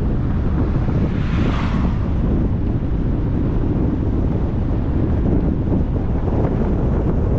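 Wind buffeting the microphone over a steady low rumble, with a brief rush of hiss about a second in.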